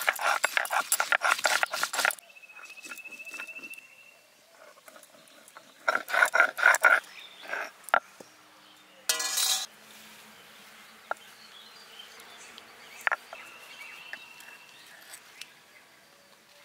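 Dried red chillies being crushed on a shil-nora: the stone roller rocked and knocked back and forth over the grooved grinding slab, a rapid gritty clatter in the first two seconds and again about six seconds in, with lighter scraping and single knocks between. A faint high trill sounds twice in the background.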